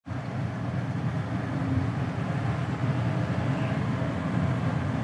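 Ram 5500's Cummins turbo-diesel engine idling steadily as a low, even rumble.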